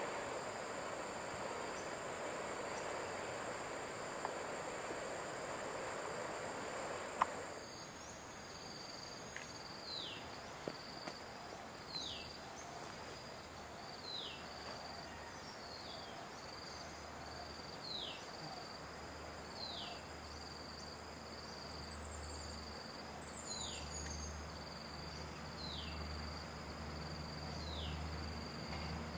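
Flowing river water for the first seven seconds, then insects buzzing steadily with a short falling call repeated about every two seconds. From about halfway, a distant diesel train's low engine hum builds as it approaches.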